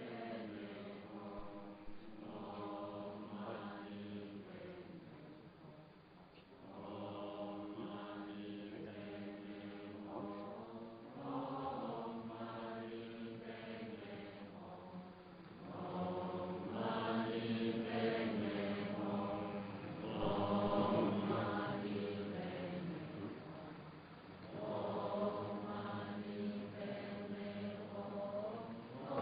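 Buddhist chanting: voices chanting on a steady pitch in phrases several seconds long, with short breaks between them.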